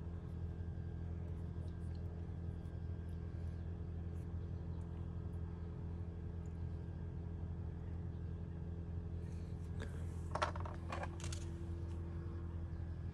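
A steady low hum, with a short cluster of small metallic clinks about ten seconds in as small carp-rig tackle is handled.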